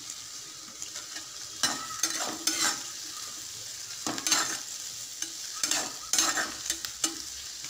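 Chopped onions, garlic and green chillies sizzling in hot oil in a kadai, being sautéed to soften. A metal spatula stirs them, scraping the pan in short, irregular strokes over the steady hiss of the frying.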